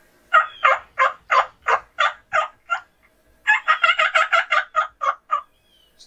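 Wild turkey yelping in two series: about ten loud notes at three or four a second, then after a short pause a faster run of about a dozen notes.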